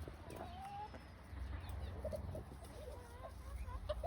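Hens clucking softly: a drawn-out call about half a second in, then a few short clucks over the rest.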